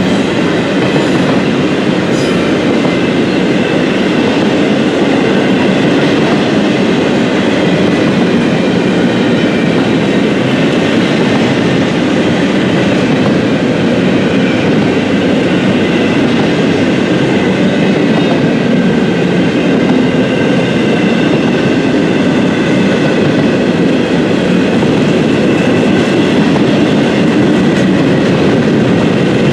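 A train's cars rolling past on the rails: a steady, loud rumble with a faint high whine mixed in.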